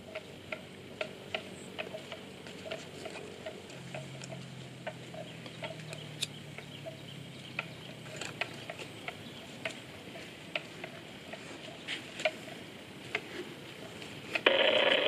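Irregular sharp clicks and snaps, about one or two a second, from water buffalo tearing and cropping grass as they graze, over a low, steady background. A brief, louder noisy burst comes near the end.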